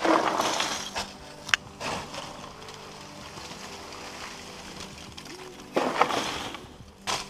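Charcoal being shovelled out of a steel kiln and tipped down a wooden chute: rattling, crunching scoops at the start and again about six seconds in, with a sharp clack about a second and a half in. Faint background music runs underneath.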